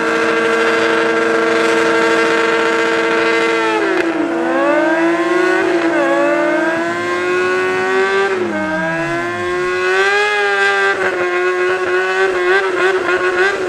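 Sport-bike engine held at high revs during a smoky burnout, the pitch dipping and climbing back a few times. Near the end the revs stutter rapidly.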